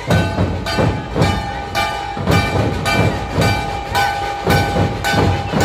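Dhol-tasha drum troupe playing a steady beat, about two heavy strikes a second, with a held high tone sounding over the drumming.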